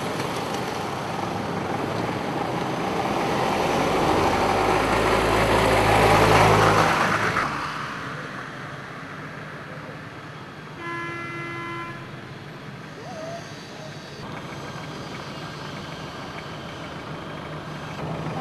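Road traffic: a vehicle with a low engine hum passes close, growing louder to a peak about six seconds in before the sound drops off sharply. A car horn sounds once for about a second near the middle, over a quieter steady hum of distant traffic.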